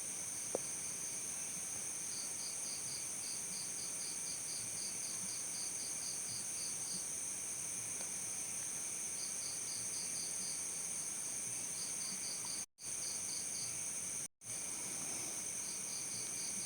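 Crickets chirping: a steady high-pitched trill from many insects, with a nearer cricket chirping in runs of quick, evenly spaced pulses, about four a second. The sound cuts out completely twice, briefly, near the end.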